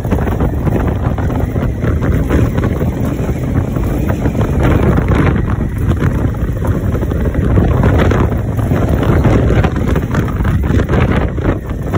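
Wind buffeting the microphone of a moving Honda Africa Twin motorcycle, mixed with the bike's running engine into a steady, dense low rumble.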